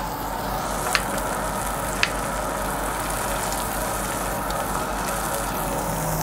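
Meat sizzling steadily on a WMF grill plate, with two light clicks about one and two seconds in.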